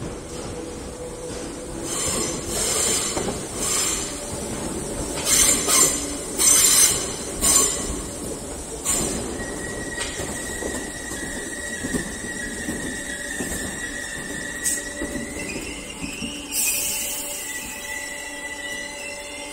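Merseyrail electric train running along the line with its wheels squealing: a series of short screeches in the first half, then one drawn-out squeal that climbs in pitch near the end.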